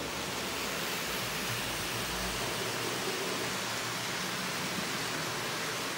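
A steady hiss, even and unchanging, with no distinct clicks, tones or rhythm in it.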